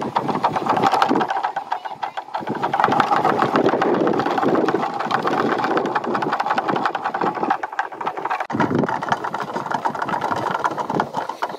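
Homemade plastic-bottle garden windmills spinning in the wind, their bottle blades and pivots giving a fast, continuous clatter that rises and falls a few times.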